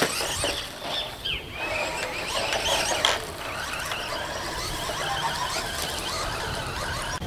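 WLtoys L959 radio-controlled buggy's electric motor and gears whining, the pitch swooping up and down again and again as the throttle is worked.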